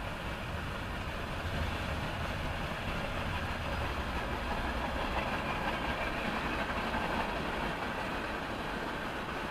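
Freight train of tank cars and covered hoppers rolling steadily past, a continuous rumble of wheels on rail, heard from inside a stopped car.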